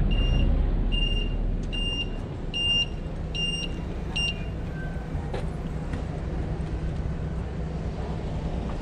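A vehicle engine rumbling steadily while a high electronic warning beep repeats about every 0.8 seconds, stopping about four seconds in.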